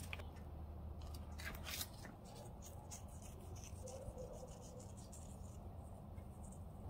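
Faint rustling and light ticks in the first two seconds as a paper seed packet is handled and parsley seeds are poured out, then only a low steady hum.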